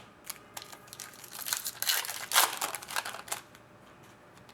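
Foil trading-card pack wrapper crinkling and tearing as a pack of Topps Chrome cards is opened, a run of crackling from about a second in to just past three seconds.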